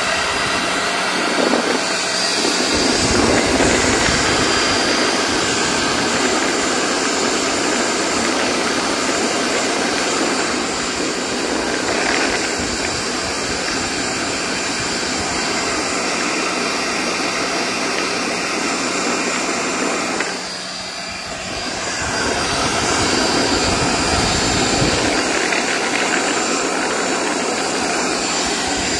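Vacuum cleaner's brushed electric motor running, a steady rushing whine with a low hum under it. The sound drops briefly about twenty seconds in, then comes back up.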